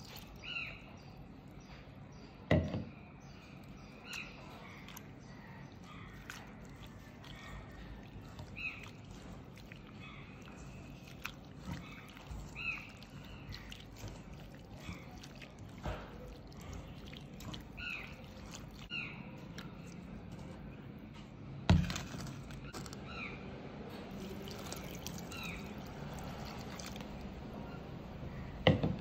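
Water poured into a stainless steel bowl of shredded mango, then a hand swishing and squeezing the shreds in the water to rinse them. Short chirps, like a bird's, repeat every few seconds in the background, and three sharp knocks are the loudest sounds.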